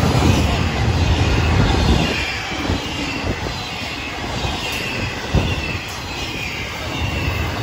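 Florida East Coast Railway intermodal freight cars rolling past at speed: a steady rumble and clatter of steel wheels on the rails, heaviest in the first two seconds. A single sharp knock comes about five seconds in.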